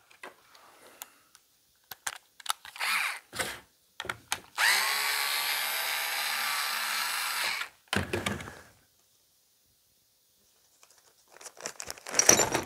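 A small handheld electric power tool spins up and runs steadily for about three seconds, with light clicks of parts being handled before it. Near the end a plastic parts bag rustles.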